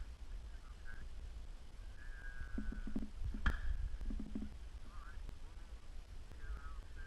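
Wind buffeting the microphone as a low rumble, with faint distant voices calling out a few times.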